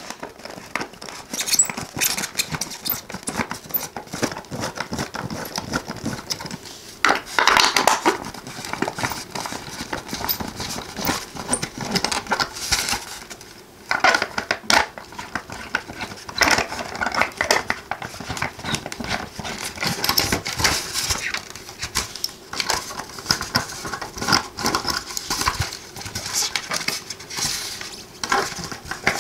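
A small precision screwdriver working stubborn screws out of a model car's base through a polystyrene foam packing block, the foam handled throughout: a steady run of irregular clicks, scrapes and creaks.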